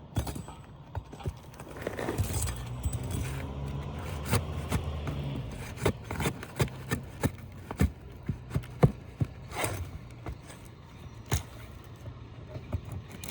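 Asphalt shingle being pried loose and pulled on a roof: scraping with a run of sharp clicks and knocks from the pry tool and nails, over a low steady hum for several seconds in the middle.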